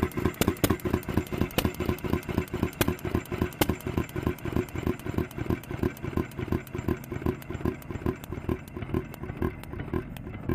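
1 hp IHC Mogul hit-and-miss gas engine running too fast, a quick steady beat of its firing and valve gear with a few sharp cracks in the first few seconds. The beats grow softer in the second half.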